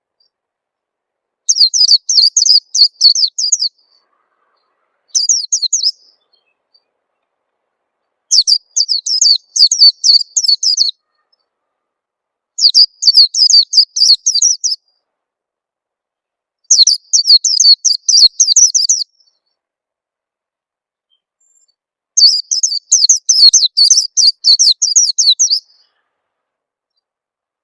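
White-eye (pleci) song: six phrases of fast, high chirps in quick succession, each one to three seconds long and separated by short silences.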